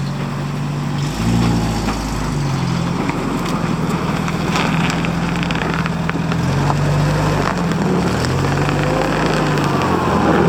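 A car driving, its engine humming low and rising and falling in pitch several times over steady road noise.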